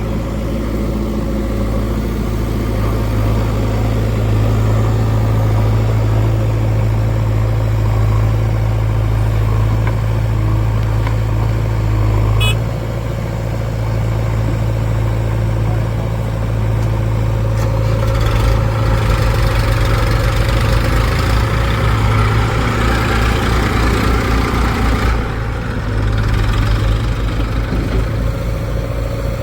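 Heavy diesel engine running steadily near idle with a deep hum. About two-thirds of the way in the note changes to a faster low throb with more clatter for several seconds, then settles back.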